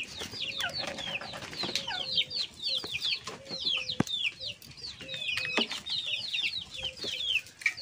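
Chickens cheeping nonstop, a dense run of short, high-pitched falling calls, with a few light clicks from hands working the fish.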